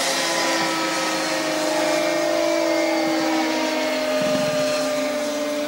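Several E-flite Cessna 150 radio-controlled foam planes flying overhead, their electric motors and propellers giving a steady whine made of several pitches at once that slowly drift up and down.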